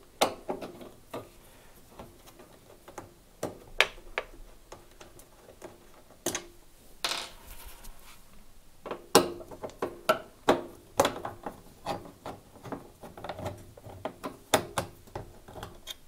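Screwdriver undoing the hinge screws of a Zanussi washing machine door: scattered small metal clicks, taps and knocks from the screwdriver, screws and hinge, with a short scraping stretch about seven seconds in.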